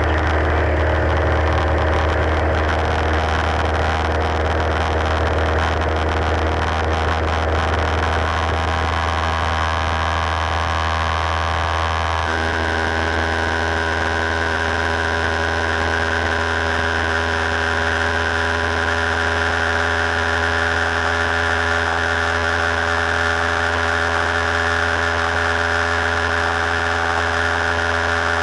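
Single-engine piston airplane's engine and propeller running steadily in flight, heard from inside the cockpit. The engine's tone shifts slightly about halfway through.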